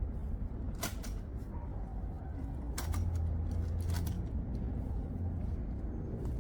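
Cooking gear being handled: a few sharp knocks and clinks over a steady low rumble.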